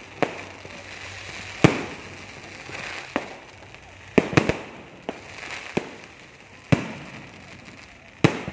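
Aerial fireworks going off: about nine sharp bangs spread a second or two apart, with a quick run of three about four seconds in, over a steady crackling hiss.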